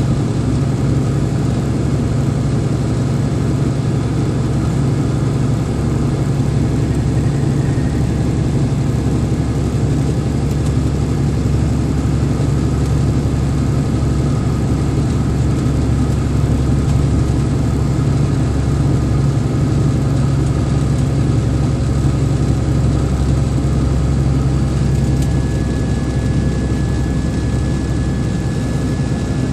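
Vehicle engine and road noise while driving, a steady low drone; a faint high whine comes in near the end.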